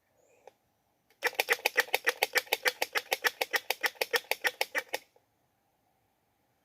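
Squirrel giving its mating call: a rapid, even chatter of sharp clicks, about eight a second, lasting about four seconds and stopping abruptly.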